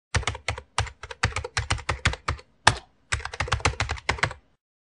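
Rapid typing on a keyboard: a quick run of about two dozen sharp keystroke clicks, with a brief pause about halfway through. The clicks stop about half a second before the end.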